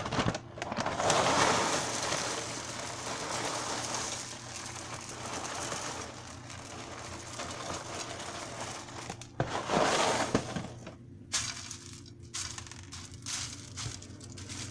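Corn Pops cereal poured from the box onto a fruit salad: a dense rattling hiss of dry pieces that swells twice and thins to scattered small clicks near the end.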